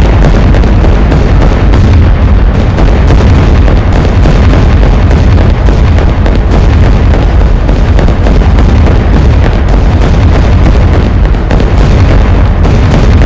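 Aircraft engine noise, loud and unbroken with a heavy low rumble, loud enough to overload the microphone.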